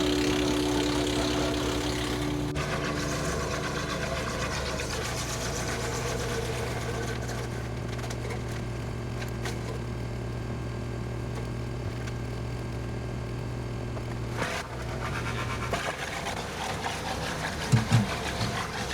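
Woodland Mills WC68 woodchipper's small gas engine running steadily with a low hum.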